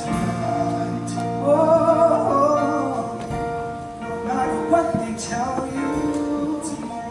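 Male solo voice singing through a microphone over a live band, with held notes carrying vibrato.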